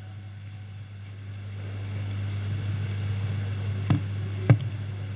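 Steady low electrical hum from a sound system with faint hall noise, broken by two sharp knocks a little over halfway in, the second one louder.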